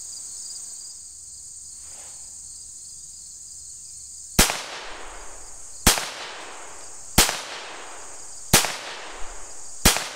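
Five shots from a Ruger Standard .22 LR semi-automatic pistol, starting about four seconds in and fired at an even pace about a second and a half apart, each with a short echo. Insects buzz steadily and high-pitched in the background throughout.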